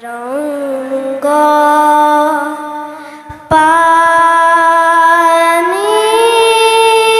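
Bamboo flute playing long held notes that slide up into pitch, over a harmonium. The music drops away briefly about three seconds in, with a couple of soft low thumps, then comes back louder.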